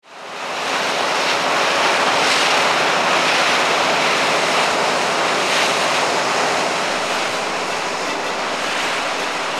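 Small fishing boat running at speed: a steady rush of water from the hull's wash and wind on the microphone, with a faint low engine hum underneath. It fades in over the first half second.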